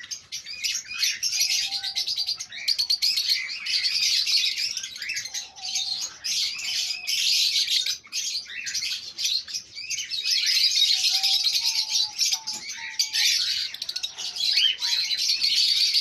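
Peach-faced lovebirds chattering: a dense, continuous stream of high, shrill chirps, with a few lower whistled notes now and then.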